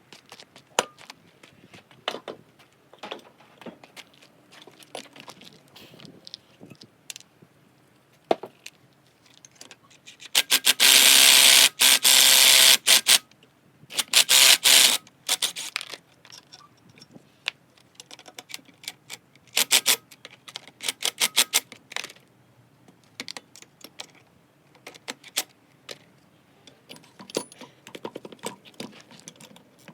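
Metal tools and parts clinking, knocking and scraping while a strut and hub assembly is taken apart. The loudest moment is a rattling power-tool burst of about two and a half seconds, around ten seconds in, with shorter bursts a few seconds later.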